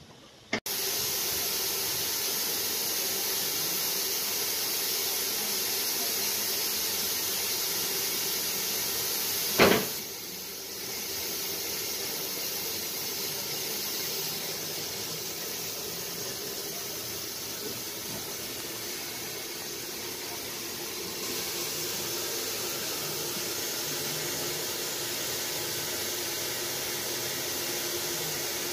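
Steady hiss of steam on the footplate of a steam locomotive, with one sharp knock about ten seconds in.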